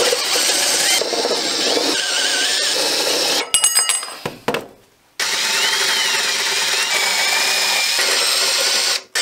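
Cordless drill boring through sheet metal to drill off an old bracket from a motorcycle's rear fender, the bit squealing as it cuts. Two bouts of drilling, with a few sharp clicks and a short pause between them a little under halfway through.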